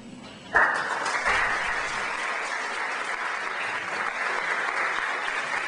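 Audience applauding. The clapping breaks out suddenly about half a second in and keeps going steadily.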